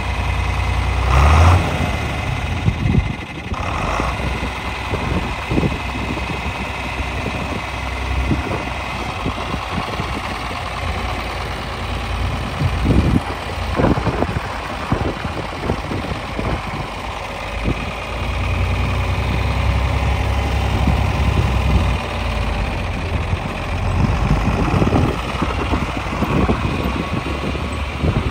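John Deere 4010 tractor's six-cylinder engine idling steadily, with a few brief louder noises.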